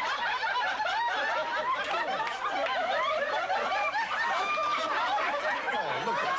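Studio audience laughter: many voices laughing together without a break.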